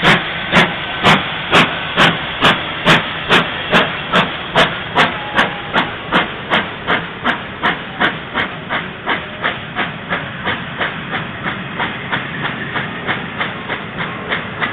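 Victorian Railways R class 4-6-4 steam locomotive R707 accelerating away from a standstill: exhaust chuffs at about two a second, quickening to about three a second and growing fainter as it pulls away, over a steady hiss of steam.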